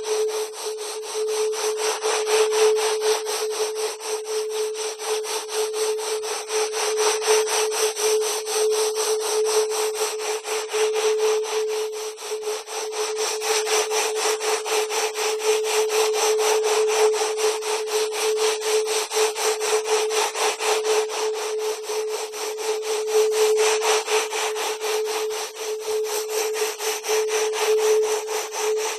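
Electronically generated 'wave genetics' sound file: a steady mid-pitched tone under a dense, rasping noise that pulses rapidly and evenly, unchanging throughout.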